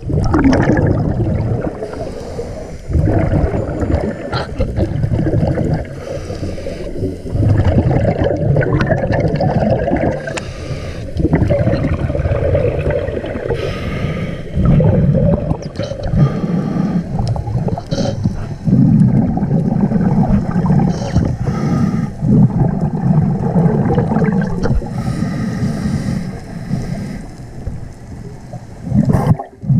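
Scuba diver breathing through a regulator underwater. A hiss on each inhale alternates every few seconds with the bubbling gurgle of exhaled air streaming past the camera.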